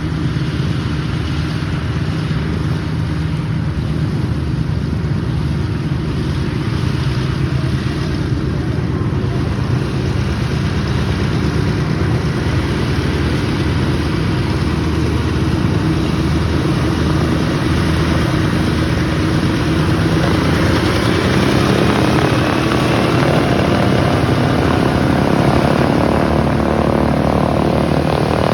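Douglas A-26 Invader's twin Pratt & Whitney R-2800 radial engines running at taxi power, a steady throbbing drone with propeller noise. The sound grows louder in the second half, with a faint rising whine.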